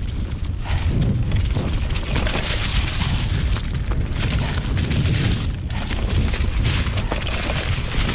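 A 2020 Specialized Pitch mountain bike riding down a rocky, leaf-covered downhill trail, heard from a rider-mounted camera: a steady low rumble of knobby tyres over rocks and dry leaves, with many sharp knocks and rattles as the bike hits bumps.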